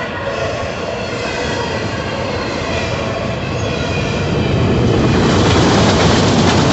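Freight train of autorack cars rolling past close by, a steady rumble and rattle of steel wheels on rail. Faint high squealing tones sound over it in the first half, and the noise grows louder about five seconds in.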